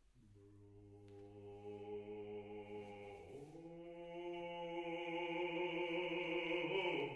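A low male voice singing long held notes: one sustained low note, then a slide up to a higher note a little over three seconds in, held and swelling louder.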